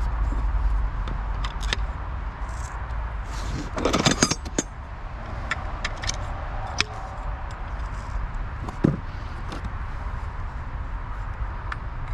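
Clicks, clatter and knocks of long black rods being handled and fitted into an orange plastic target-lifter fitting, with a burst of rattling clicks about four seconds in and a single knock near nine seconds, over a steady low rumble.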